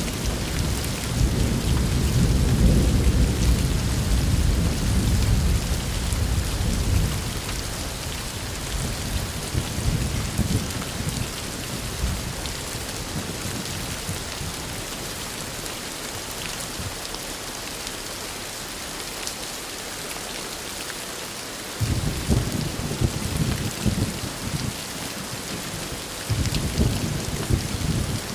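Steady heavy rain hissing, with rolls of thunder. A long rumble fills the first several seconds and dies away. Near the end, two more rumbles break in suddenly, one after the other.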